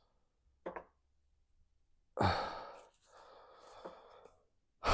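A person sighing: one breathy exhale about two seconds in that fades out over about half a second, after a short faint sound just before it.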